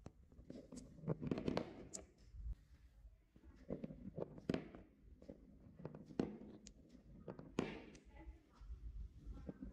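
Small marbles rolling along a modeling-clay track, knocking against each other and dropping onto cardboard: a run of irregular light clicks and taps, a few of them sharper.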